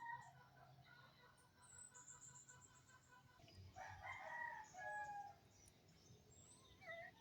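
A rooster crowing faintly once, midway through, in a drawn-out call of several parts. There are a few faint high chirps from small birds shortly before it.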